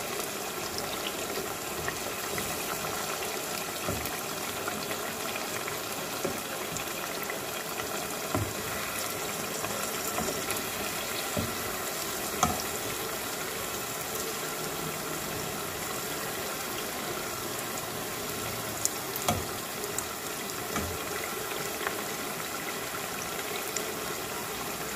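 Cornstarch-coated eggplant slices deep-frying in hot oil in a pot: a steady bubbling sizzle, with a few light clicks as the slices are turned with tongs.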